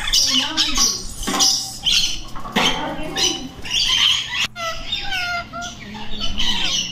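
A flock of lorikeets and lories screeching and chattering, many short shrill calls overlapping without a pause.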